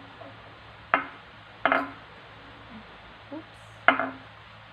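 Eating utensils clinking against a bowl: three sharp clinks, about a second in, near two seconds and near four seconds, with a fainter knock between.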